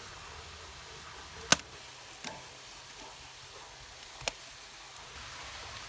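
Metal tongs clack sharply twice against the grill grate and corn cobs while turning grilling corn on the cob, the first clack louder, over a steady faint sizzle from the grill.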